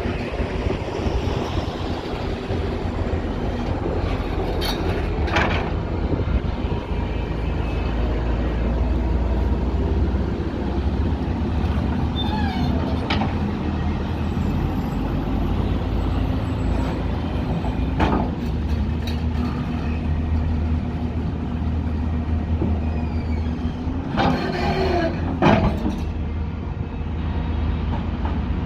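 Diesel engine of a heavy earthmoving machine running steadily under load, with a few knocks and short squeaks from the working machinery, the loudest cluster near the end.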